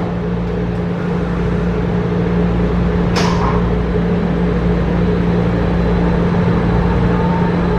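MRT train running, with a steady rumble and a constant low hum. A brief sharp squeak or click comes about three seconds in.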